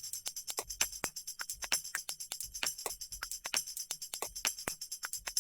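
Background music in a quiet break: a tambourine jingling in a quick steady rhythm over light percussion strikes, with no guitar or bass.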